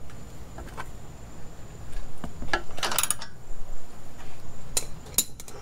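Scattered metallic clicks and clinks of a socket wrench working the bolts of an exhaust pipe clamp, with a short quick cluster of clicks about three seconds in.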